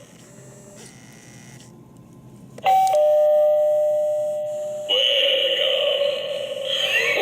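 Gemmy animated eye novelty doorbell sounding: a two-note electronic ding-dong chime about two and a half seconds in, slowly fading. It is cut off by a buzzy, pulsing electronic sound effect.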